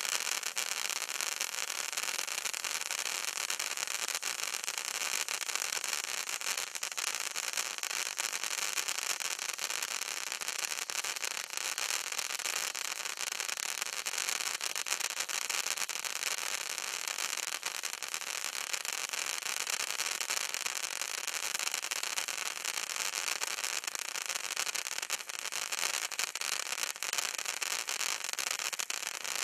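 Bright Star BS5602 Ice Fountain firework burning, a steady hiss of spraying sparks with a dense fine crackle through it.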